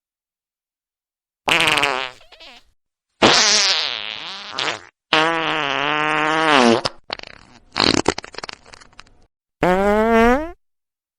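A series of fart sounds, about five separate blasts with silence between them. Most are buzzing and wavering in pitch, one breaks up into a sputter, and the last short one rises in pitch.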